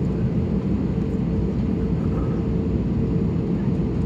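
Steady cabin noise of an Airbus A320neo with its engines running: an even low rumble with a constant hum in it.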